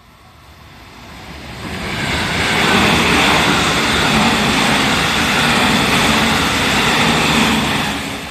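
A JR Central 313 series electric train passing at speed, its wheels running on the rails. The sound builds over about two seconds, holds steady while the cars go by, then starts to fade near the end.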